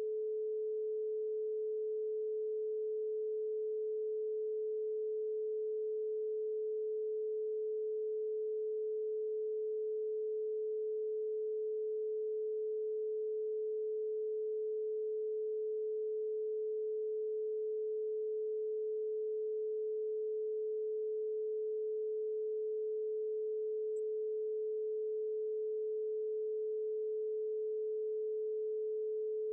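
Synthesized brainwave-entrainment tone: a single pure mid-pitched tone held perfectly steady, with no other sound.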